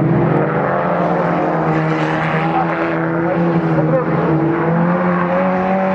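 Several autocross race car engines running together, their pitch rising and falling gently as the cars go round the dirt track.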